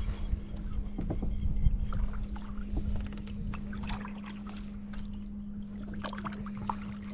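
Water lapping and gurgling against a small kayak's hull, with wind rumbling on the microphone that eases after about three seconds, a few light knocks and clicks, and a steady low hum throughout.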